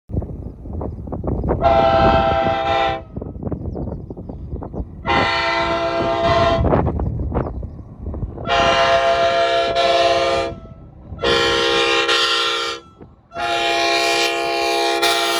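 Air-powered multi-chime train horn blown in five blasts, the first two short and the last three longer, each a full steady chord; the last blast begins to sag in pitch right at the end as the air runs down. A crackling rumble runs underneath in the first half.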